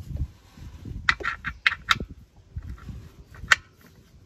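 Torque wrench fitted with an extended hex bit clicking as the oil drain plug is tightened to 25 Nm: a quick run of sharp clicks about a second in, then one louder click about three and a half seconds in.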